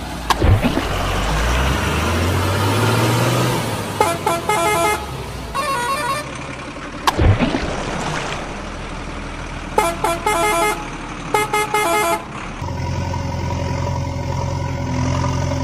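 Heavy truck engine running, with four bursts of a truck horn honking, each a quick run of toots. Sharp water splashes about half a second in and about seven seconds in.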